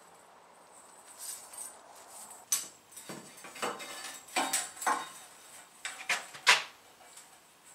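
A long steel bandsaw blade being handled and fitted, giving a string of sharp metallic clanks and rattles with short ringing, starting about two and a half seconds in, the loudest near the end.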